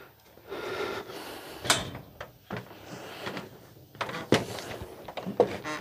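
Footsteps on a wooden trailer deck, with rustling and a few sharp knocks; the loudest knock comes a little past the middle.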